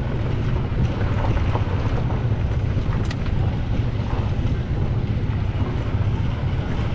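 Golf cart driving along a dirt road: a steady low drone from the cart, with wind buffeting the microphone.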